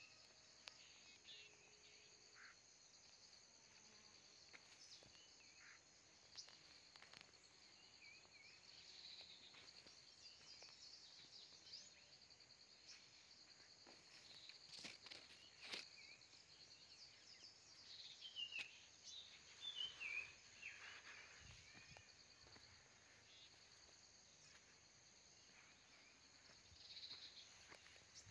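Faint outdoor ambience: a steady, high, even insect drone of crickets, with short falling bird chirps now and then, most of them near the start and about two-thirds of the way in. Two sharp clicks come about halfway through.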